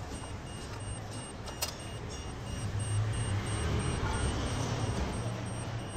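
A low, steady mechanical hum that grows a little louder about halfway through, with one sharp click about a second and a half in.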